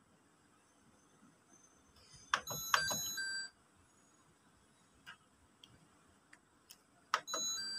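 Front-loading washing machine's control panel beeping as its buttons are pressed: a few clicks and a short run of electronic beeps about two seconds in, and another click and beep near the end.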